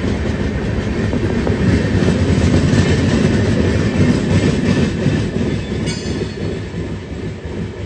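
Rajdhani Express LHB coaches passing at speed: a steady heavy rumble with the clatter of wheels over rail joints. A short high-pitched ring comes about six seconds in, and the rumble eases a little near the end as the train runs past.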